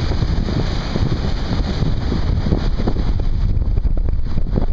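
Strong wind buffeting the microphone on a boat crossing choppy water: a dense, steady low rumble, with irregular thumps in the second half.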